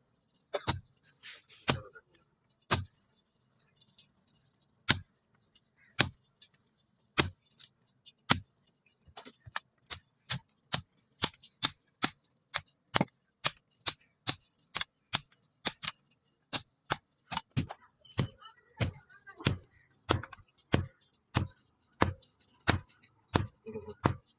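Hammer blows on a steel leaf spring on an anvil, each strike sharp with a metallic ring. The blows come about one a second at first, then from about nine seconds in a quick steady run of two to three a second.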